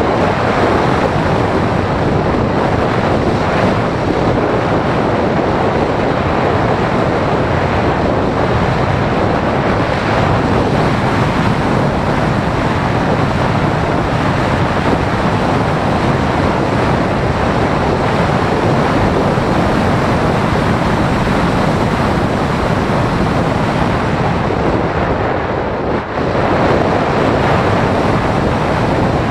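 Steady rushing wind noise on the microphone of a camera riding on a model glider in flight, with no motor tone. The rush dips briefly once near the end.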